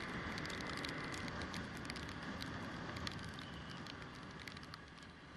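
KTM motorcycle riding on a rain-soaked road: a steady rush of tyre spray and engine noise, with many sharp ticks of raindrops hitting the action camera's housing. It grows quieter from about three seconds in as the bike slows.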